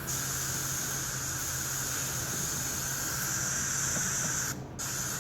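Primer being sprayed onto a car panel: a steady hiss of spray that breaks off briefly near the end and starts again, over a low steady hum.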